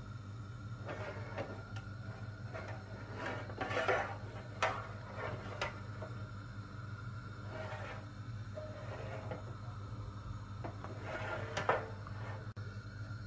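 Aluminium baking tray of milk pudding being slid and shifted over a gas hob burner, its metal scraping and knocking on the hob several times, the loudest near 4 seconds in and again near the end, while the pudding's underside is scorched. A steady low hum runs underneath.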